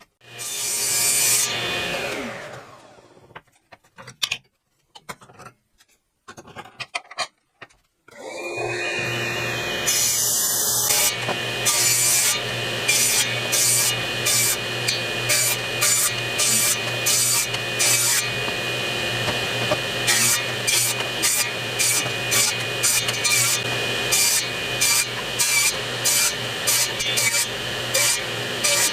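Power saw making many repeated cuts across lumber to clear out a notch, in sped-up footage. Near the start the saw cuts and then winds down, falling in pitch. From about eight seconds in the motor runs steadily with rapid, evenly repeated cutting surges.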